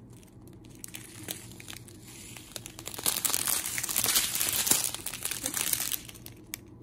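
Strip of clear plastic bags holding round resin diamond-painting drills crinkling as it is handled: scattered crackles at first, then a louder burst of crinkling from about three seconds in to about six seconds in.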